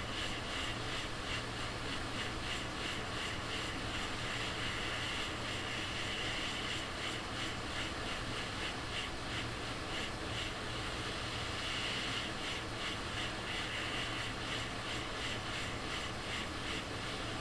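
Steady whooshing noise, like a fan or blower, over a low steady hum, with a hiss that wavers in strength.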